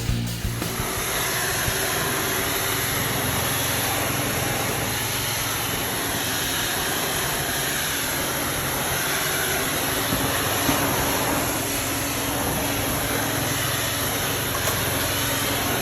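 Steady rushing of a carpet-cleaning extractor's vacuum and pressure spray working through a tile-cleaning wand on a tile floor.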